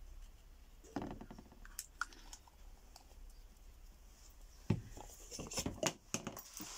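Clicks and knocks of a small flux bottle and hand tools being handled and set down on a wooden workbench: a few single taps at first, then a quick cluster of clicks in the second half.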